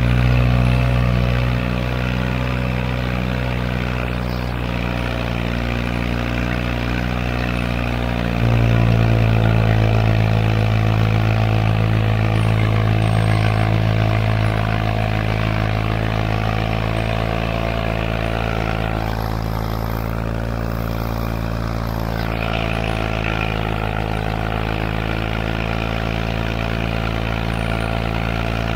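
John Deere 1020 tractor's three-cylinder gasoline engine running steadily as the tractor is driven, its exhaust note going out through the vertical stack. The engine gets louder about eight seconds in and holds that note.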